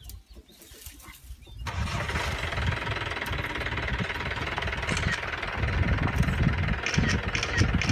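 A motor vehicle's engine starts abruptly about a second and a half in and keeps running steadily with a low rumble.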